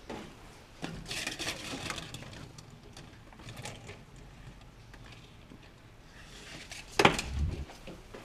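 Rain falling faintly, with scattered light clicks and one sharp knock with a low thud about seven seconds in.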